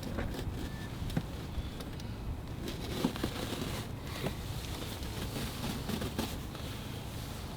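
Faint rustling with scattered small clicks and knocks, one a little louder about three seconds in: the handling noise of work on a car's stripped interior.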